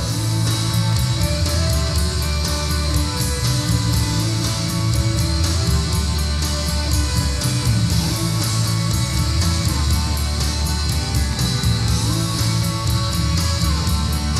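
Rock music with electric guitar and a steady drum beat, played back from a cassette on a Technics RS-D400 stereo cassette deck.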